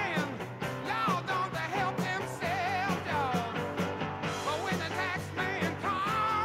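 Music with a steady beat and a wavering lead melody line.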